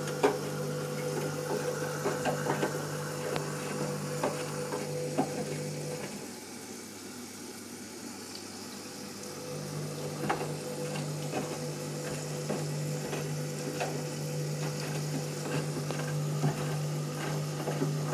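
Candy Grand'O Vita washing machine on a cottons pre-wash, with water sloshing in the drum over a steady low hum that drops out for about three seconds partway through and then returns. Small clicks and splashes of the wet load come now and then.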